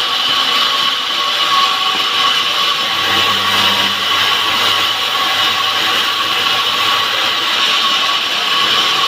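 Motorised wood saw running steadily as it cuts through wood, a continuous loud noise with a steady high-pitched tone.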